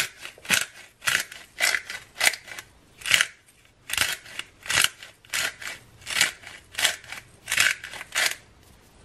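Black pepper mill being twisted by hand over a bowl, grinding in a run of short crunchy strokes, about two a second, that stop shortly before the end.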